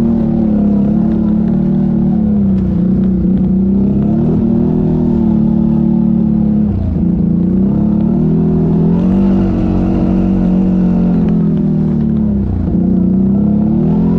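ATV engine running under throttle, its pitch rising and falling as the throttle is worked, with brief dips about seven seconds in and again near the end.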